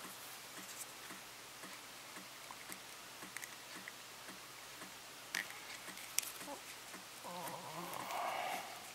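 Faint handling sounds of a 1.5 mm drill bit being twisted by hand into a soft vinyl figure part to widen a pin hole: scattered small clicks, two sharper ticks past the middle, and a brief wavering squeak of the bit rubbing the vinyl near the end.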